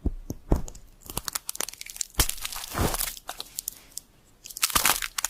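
Close-up crunching and cracking of something being broken apart, coming in several bursts of rapid crackle.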